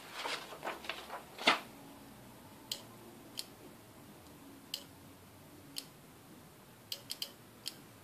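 Paper rustling for the first second and a half, then a small mechanical relay clicking about eight times, singly and in quick clusters. Each click is the relay switching as a screwdriver's metal tip is moved at an inductive proximity sensor, triggering it.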